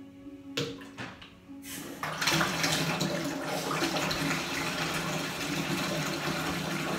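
A few light knocks, then about two seconds in a bath tap is turned on and water runs steadily into the bathtub.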